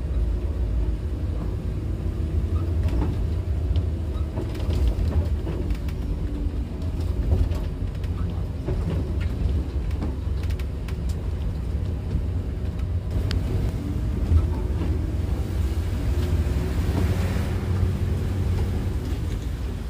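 Coach's engine and road noise inside the cabin, a steady deep rumble as the bus crawls along a rough, broken road, with scattered knocks and rattles from the bodywork.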